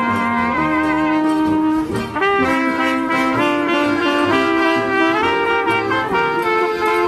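Live band music led by brass instruments: a melody of held notes, one with vibrato about half a second in, over lower sustained notes.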